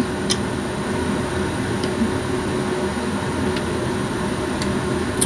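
Steady droning background hum, with a few faint soft clicks from chewing and peeling a small orange.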